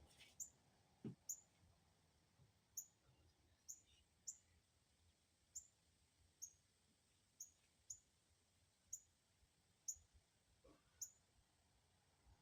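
A small bird chirping over and over: short, high, falling chirps about once a second, with a faint thump about a second in.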